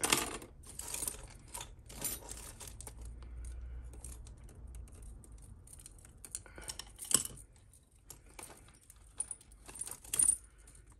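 Metal bangles and costume jewellery clinking and jangling against each other as hands rummage through a pile, in irregular bursts. The loudest jangles come right at the start, about seven seconds in and near the end.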